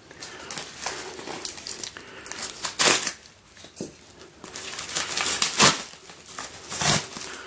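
Postal package being torn open by hand: crinkling and crumpling of the packaging with a few sharper rips.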